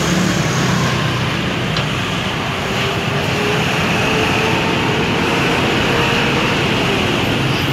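Matsumoto MTM 1380 DE mini cultivator's single-cylinder diesel engine running steadily.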